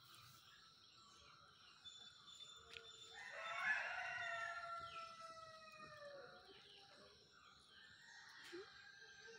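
A rooster crowing once, a single drawn-out call of about three seconds starting around three seconds in and falling in pitch at the end.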